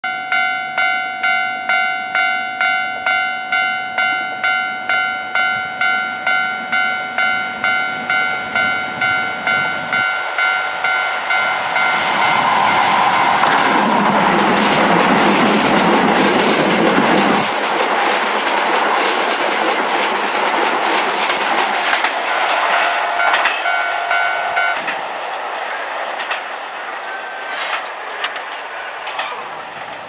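Japanese level-crossing warning bell dinging about twice a second. Then, from about twelve seconds in, a Keisei 3000-series eight-car electric train passes the crossing, its noise loudest for the first few seconds and fading as it goes away. The bell stops soon after the train clears.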